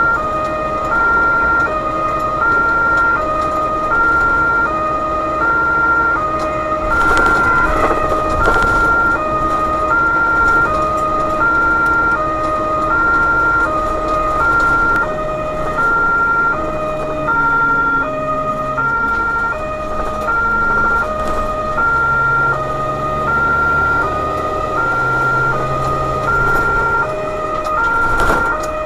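German two-tone emergency siren (Martinshorn) sounding continuously, a high and a low note alternating steadily, heard from inside the cab of the emergency vehicle over its engine and road noise. A few brief knocks are heard about seven to eight seconds in.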